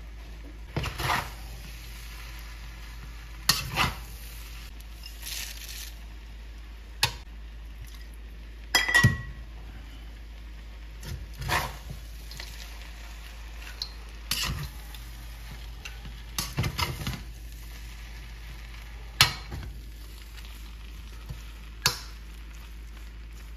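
Metal spatula scraping and knocking against a steel wok while sticky rice is stir-fried, in irregular strokes every second or two, over a faint steady sizzle.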